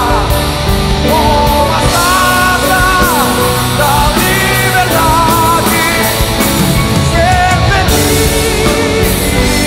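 A live rock band playing loud and full, with a drum kit driving steady cymbal strokes and a sung melody wavering above it.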